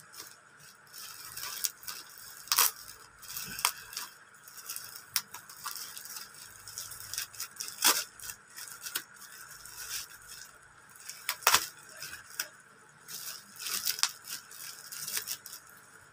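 Plastic packaging being handled and torn open: crinkling and tearing, with irregular sharp snaps, the loudest about two and a half, eight and eleven and a half seconds in.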